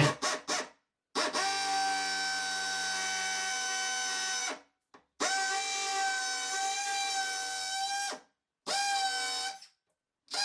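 Electric drill boring a 5/8-inch hole into a stone wall, its motor whining at a steady pitch. It runs in four stretches of one to three seconds, each starting and stopping abruptly.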